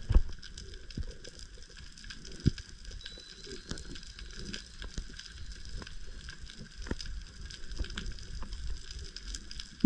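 Underwater reef crackle heard through the camera housing: a dense patter of short clicks and pops, typical of snapping shrimp on a rocky reef. A louder knock comes right at the start and another about two and a half seconds in.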